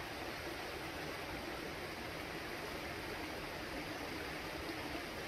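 River water flowing: a steady, even rush with no break.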